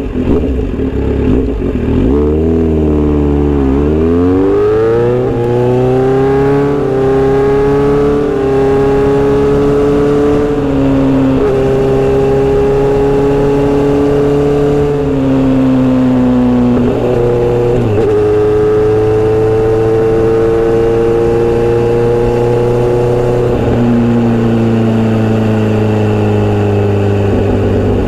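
Kawasaki Z900RS inline-four with a Misty Kintaro short-pipe exhaust and L silencer, under way. The engine note dips low, then climbs over a few seconds as the bike accelerates. It then runs steadily, with several gear changes, each a short dip or step in pitch.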